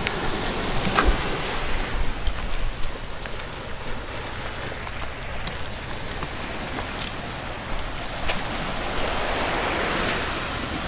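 Steady outdoor rushing noise with a low rumble, like wind or surf, broken by a few faint clicks and knocks.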